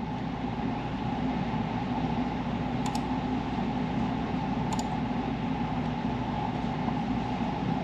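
Steady mechanical background hum, even in level, with two faint clicks about two seconds apart partway through.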